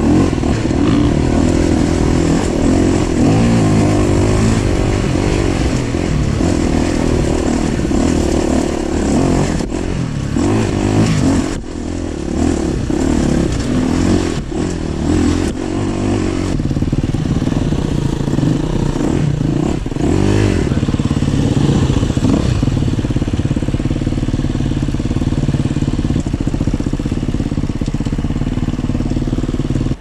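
Dirt bike engine under way on a trail, heard from the rider's own bike, its pitch rising and falling as the throttle opens and closes, with a few brief drops in loudness partway through.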